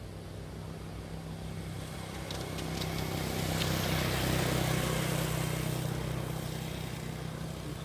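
A motor vehicle passes along the road. Its engine and tyre noise swells to a peak about halfway through, then fades.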